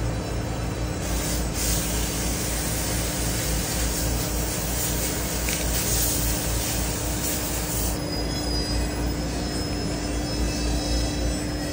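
A steady machine drone with a constant hum and hiss underneath, joined by faint high whistling tones about eight seconds in.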